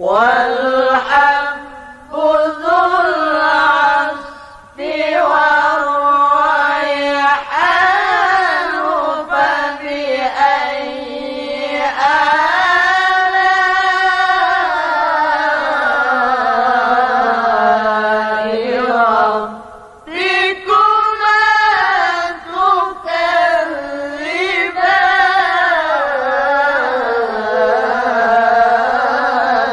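A man reciting the Qur'an in melodic tilawah style in maqam Bayati: a single unaccompanied voice sustaining long, ornamented phrases that rise and fall. He breaks for breath about two seconds in, near five seconds, and near twenty seconds.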